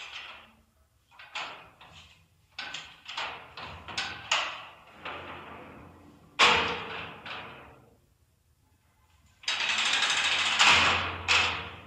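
A string of sharp knocks and bangs with a short room echo, about a dozen in all, then a longer noisy sound lasting about a second and a half about ten seconds in.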